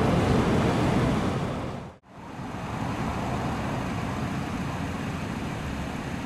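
Audi A5's 2.0-litre turbocharged four-cylinder engine idling steadily, heard from in front of the car, with outdoor background noise. The sound drops out abruptly about two seconds in and resumes a little quieter.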